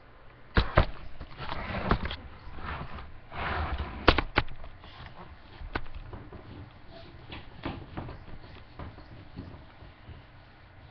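Handling noise from a whiteboard being moved and bumped close to a webcam microphone: a pair of sharp knocks about half a second in and another pair about four seconds in, with rustling and scraping between.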